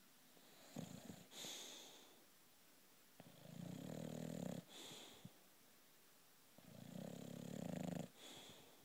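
British bulldog snoring: three snores about three seconds apart, each followed by a short hissing breath.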